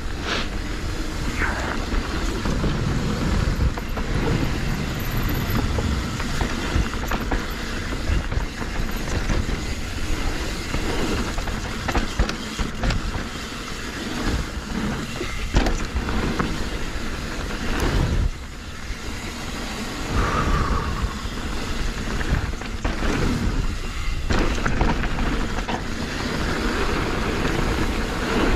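YT Decoy electric mountain bike ridden down a dirt trail: a steady rush of riding noise with frequent knocks and rattles as the bike runs over bumps.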